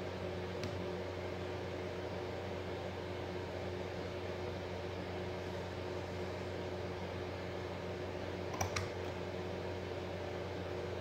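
A steady low mechanical hum with a faint hiss, like a fan or appliance running, broken by a small click just after the start and another about three quarters of the way through.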